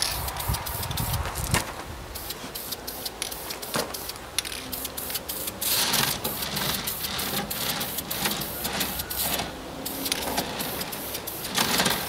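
Aerosol can of spray paint hissing in a few short bursts, with frequent light clicks and knocks in between.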